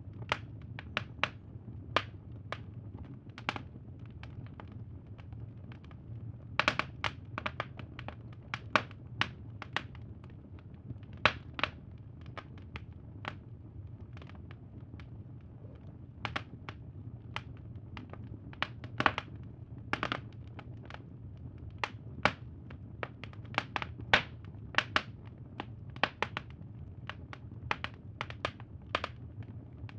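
Wood fire crackling: irregular sharp pops and snaps, some in quick clusters, over a steady low background hum.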